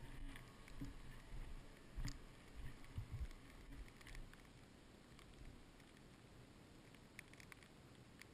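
Faint, muffled ride noise as heard through a helmet-mounted camera's sealed housing on a moving snowmobile: low thumps and knocks from jolts over the snow, loudest around two and three seconds in, with scattered light ticks.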